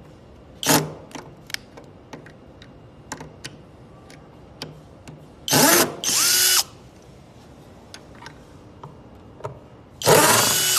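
Cordless drill/driver running in four short bursts as it unscrews the screws of the cabinet's rear cover, with small clicks between the runs.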